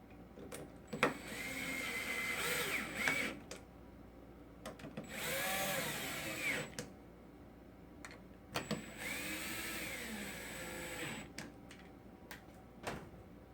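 Small cordless drill/driver driving screws in three separate runs of a few seconds each, its motor pitch rising and falling as each screw seats. Short clicks and knocks of handling come between the runs.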